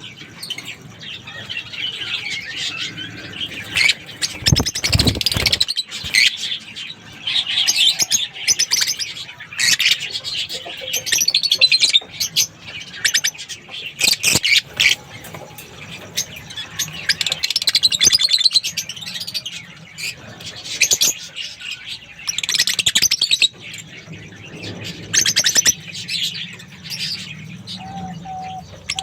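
A group of caged lovebirds chirping and twittering in repeated shrill bursts, with a brief low rumble about five seconds in.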